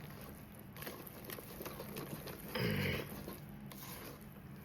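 Runny cake batter being stirred by hand with a spoon in a bowl: soft, irregular squelching with light clicks of the spoon against the bowl. A brief vocal sound about two and a half seconds in.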